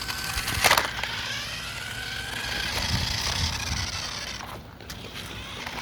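Toy remote-control Megalodon monster truck's electric motor and gears whirring as it drives, with a sharp knock about a second in. The whir dies away about a second before the end.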